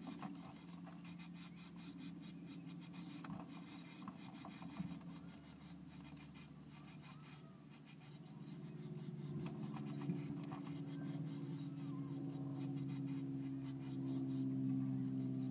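Blue tits shifting about inside the nest box: a dry, uneven scratching and rustling of claws and bodies on the moss and nest lining, made of many short scratches. A steady low hum sits under it and grows louder in the second half.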